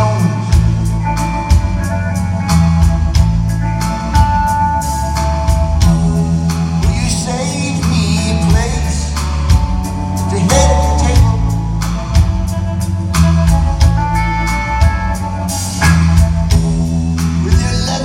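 Live rock band playing: electric guitar, bass and drum kit with a steady drum beat, and a man singing lead.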